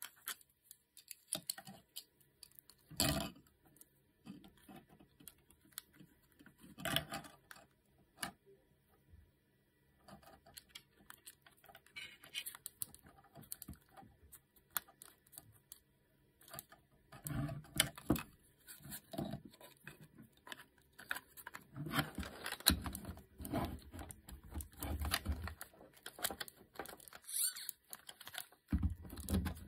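3D-printed plastic robot-arm parts being handled and fitted together: irregular clicks, taps and knocks of plastic on plastic, sparse at first and busier through the second half.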